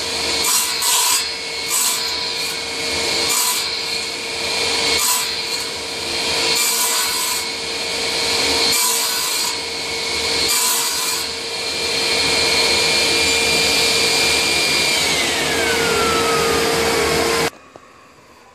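AMF radial arm saw running with its dust collection drawing air. The blade bites through a wooden board in about eight short cross-cuts, a second or two apart. Near the end the motor's whine falls in pitch as the saw spins down, then the sound cuts off abruptly.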